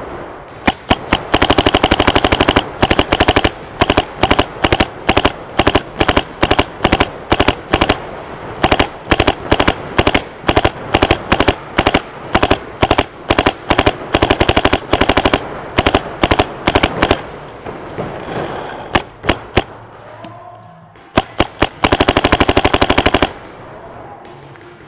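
Paintball markers firing rapid strings of shots: dense, fast volleys for most of the first seventeen seconds, a few scattered shots after that, then another fast burst near the end.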